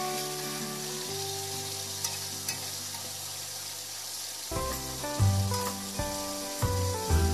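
Chicken pieces frying in hot oil in a steel wok: a steady sizzle, with a few light clicks as a metal ladle turns them. Background music plays alongside, with heavier bass notes coming in about halfway through.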